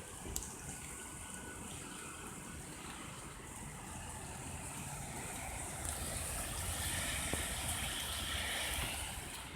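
Rain falling, a steady hiss that grows gradually louder through the middle and second half.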